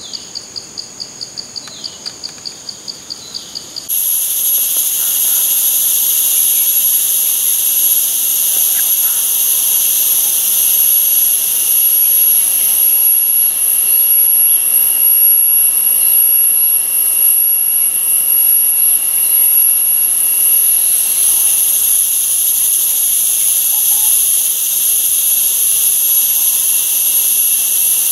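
Forest insects calling: a pulsing call at about four pulses a second, then from about four seconds in a loud, steady, high-pitched insect drone.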